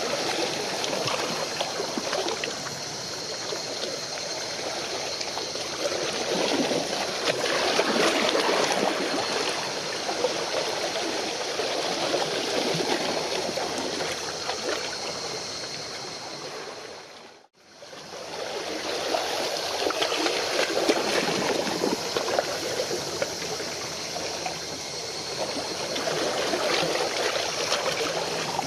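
Moving water splashing and lapping in an uneven wash, with a faint steady high tone above it. The sound fades out to silence for an instant about seventeen seconds in, then resumes.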